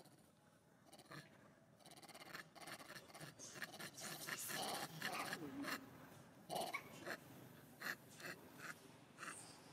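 Monkeys making short animal noises amid a run of clicks and rustling scrapes, getting busier and louder after about two seconds.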